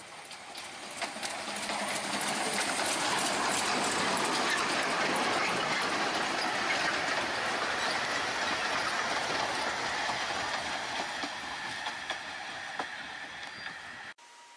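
Narrow-gauge steam train passing close by, its carriage wheels clattering over the rail joints. The sound builds over the first two seconds, is loudest as the coaches go by and fades as the train draws away. It cuts off sharply near the end.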